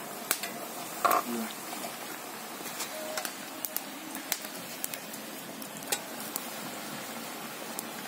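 Batuk fritters deep-frying in mustard oil in an iron wok: a steady sizzling hiss with frequent sharp pops and crackles.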